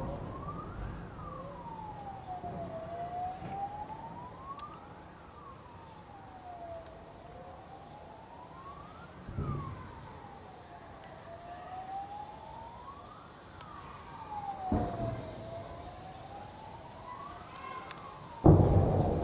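A siren wails slowly up and down, one rise and fall about every four seconds. Shelling explosions boom through it: one near the middle, another about three quarters through, and a loud blast near the end.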